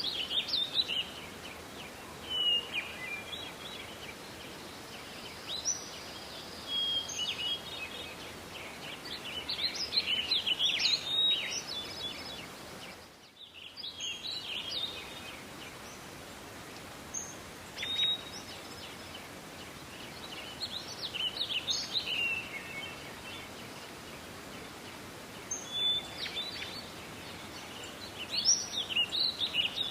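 Songbirds singing in a forest: short, bright chirping song phrases come every few seconds over a steady background hiss. All sound briefly drops out about halfway through.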